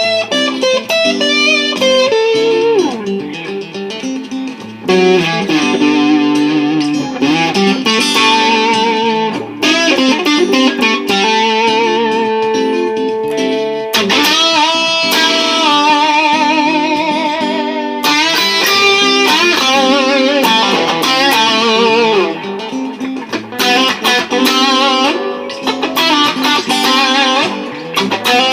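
Fender Cabronita electric guitar playing a lead solo over a looped Martin acoustic guitar rhythm part. Some notes are held and waver in pitch with vibrato.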